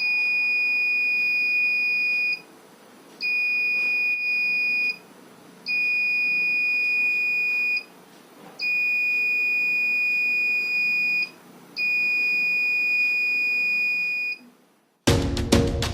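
Electronic buzzer of a homemade security alarm circuit sounding a steady high-pitched tone in five separate stretches of about two seconds each, with short gaps between them. Music starts near the end.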